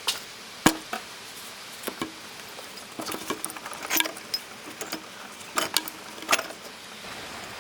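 Metal clinks and knocks of an AC compressor and its mounting bolts being worked back onto the engine bracket: one sharp knock under a second in, then scattered lighter clicks and taps, some with a faint ring.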